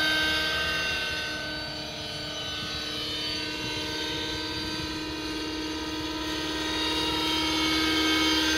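Align 600-size nitro RC helicopter in flight, its engine and rotors making a steady whine. The sound falls off a little about two seconds in, then grows louder again toward the end as the helicopter comes back closer.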